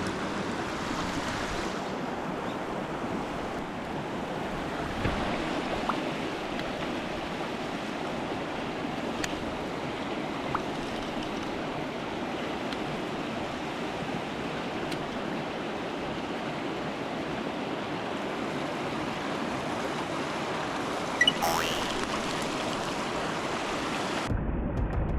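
Mountain stream water rushing steadily, with a few faint clicks and a brief louder clatter about three-quarters of the way through. The water sound cuts off suddenly near the end.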